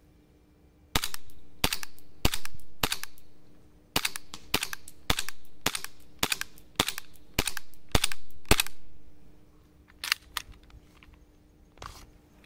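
Gas blowback airsoft SIG Sauer P320 M17 pistol firing about thirteen shots, roughly two a second, with a short pause after the fourth. Each shot is a sharp crack that trails off. A few fainter clicks follow near the end.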